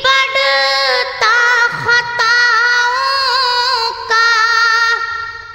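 A single high voice singing a slow devotional nasheed, with long held notes that waver and ornament, in several phrases that fade out near the end.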